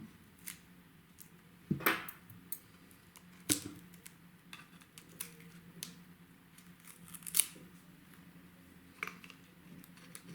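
Scattered sharp clicks and snips of hand tools on a cordless vacuum's battery pack as its balance-lead wiring is disconnected, with the loudest about two, three and a half, and seven seconds in. A faint steady hum runs underneath.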